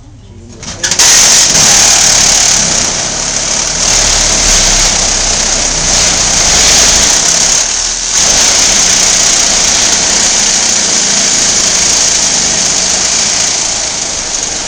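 A power saw starts about a second in and cuts steadily and loudly through the shed's framing, dipping briefly just before the eighth second before biting in again.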